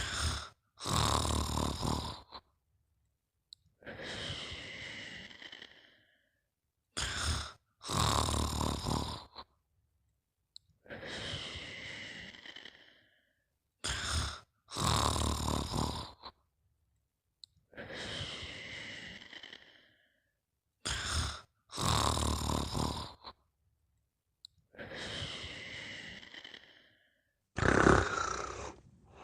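Slow, regular snoring, about four breaths roughly seven seconds apart. Each breath is a brief catch, then a loud snore, then a softer, breathier exhale.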